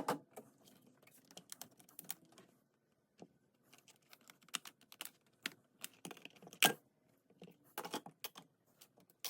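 Scattered, irregular light clicks and taps of small tools and parts being handled on a tablet as its charging port repair begins.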